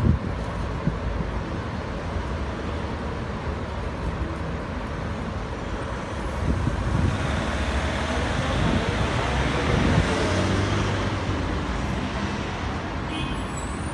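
Steady road traffic noise, with a vehicle passing and growing louder in the middle before fading again.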